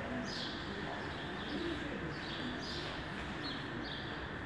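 Small birds chirping: short, high, falling chirps repeating irregularly about once or twice a second over a steady background noise.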